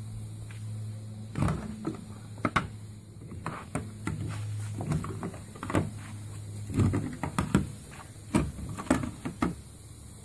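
Irregular plastic clicks and knocks of a clear pistol-grip slot car hand controller being handled and bumped against the wooden driver's stand, over a steady low hum that cuts out now and then.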